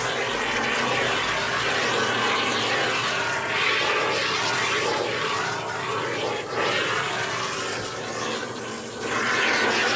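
Aerosol can of Sika Boom expanding polyurethane foam hissing steadily as foam is sprayed out through its nozzle in a continuous bead. The hiss softens briefly shortly before the end.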